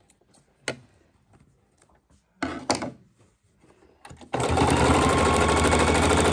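An electric sewing machine starts about four seconds in and runs steadily, sewing down a strip of hook-and-loop tape. Before that there is a sharp click and a short burst of noise.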